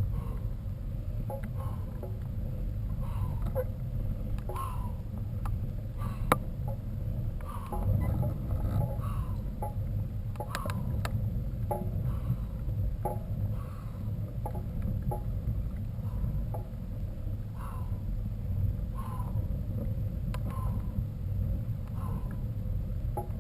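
Low, steady rumble of wind buffeting the microphone on a moving mountain bike, with short squeaks about once a second and a few sharp clicks.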